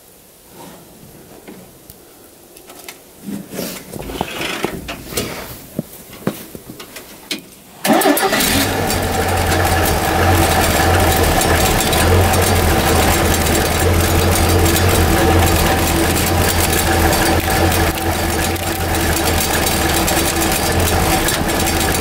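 1968 Bombardier tracked snow plow's engine catching on a jump start after its battery died: scattered knocks and clatter, then the engine starts suddenly about eight seconds in and runs steadily with a low hum.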